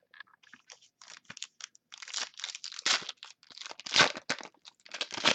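Foil wrapper of a pack of football trading cards being torn open and crinkled in the hands: a run of irregular crackles, loudest about four seconds in.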